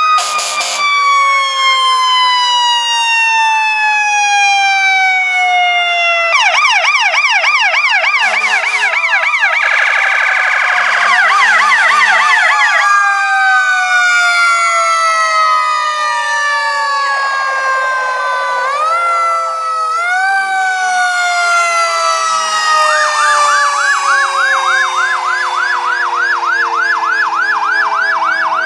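Several fire-truck sirens sounding at once: long wails that slowly fall in pitch, overlaid in several stretches, including near the end, by fast yelping sirens, with one wail rising briefly about two-thirds of the way through.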